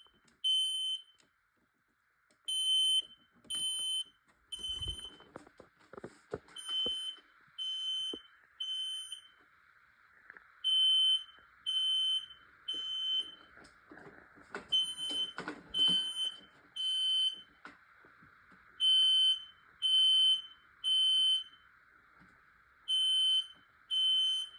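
Smoke detector in alarm, set off by aerosol test smoke, beeping in the temporal-three evacuation pattern: three high-pitched beeps about a second apart, a pause, then three more, repeating. A few knocks sound in between.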